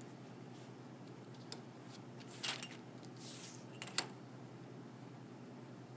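Craft knife cutting and trimming duct tape along a steel ruler on a cutting mat: a few sharp clicks and short scratchy scrapes, the loudest about two and a half and four seconds in.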